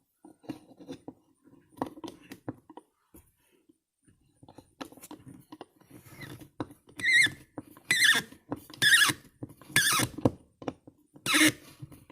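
Small tool clicks and taps, then five squeaks about a second apart, each wavering in pitch, as screws are turned down tight into a carburetor body.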